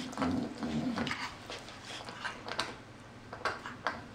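Two pit bull-type dogs wrestling, with a low growl in the first second, then scuffling with a series of short sharp clicks and scuffs.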